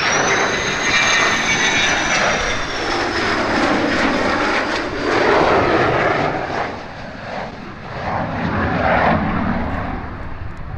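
F-16 fighter jet's engine as it flies past on a landing approach: a continuous jet roar with a high whine that slowly falls in pitch over the first few seconds. The roar swells and eases.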